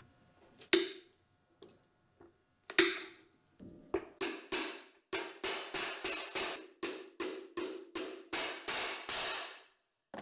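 Hand hammer striking a leather boot at the bench: a few separate knocks, then from about four seconds in a steady run of blows, about three a second, each with a short ring.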